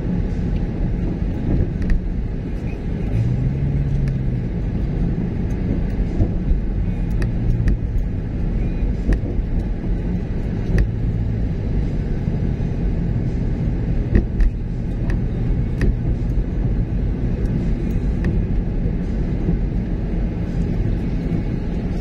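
Steady low rumble of a car's engine and tyres on a paved road, heard from inside the moving car's cabin.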